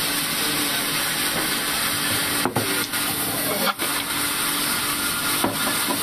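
Large sawmill band saw running steadily without cutting, a constant whirring hiss with a low hum under it, with a few short knocks of wooden boards being handled on and beside the saw table.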